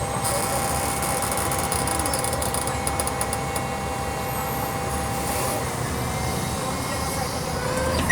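Mercedes-Benz O-500 MA articulated city bus under way, its OM-457 LA six-cylinder diesel running steadily with road rumble. A steady whine runs alongside and stops about five and a half seconds in.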